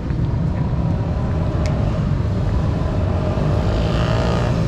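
Steady road traffic: a continuous low rumble of vehicle engines, with one vehicle passing louder near the end.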